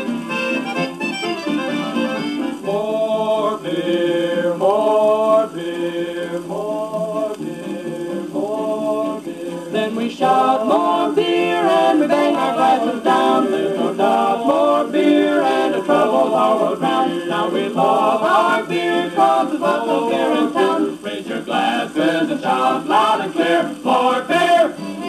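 A 1948 78 rpm record playing through the small built-in speaker of a Birch Model 205 portable phonograph: an instrumental break of the song, with the melody carried over a steady accompaniment. The sound is thin, with almost no deep bass.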